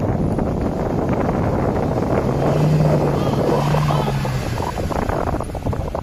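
Pickup truck engine running while heavy wind buffets the microphone, with a steady low hum for about two seconds in the middle.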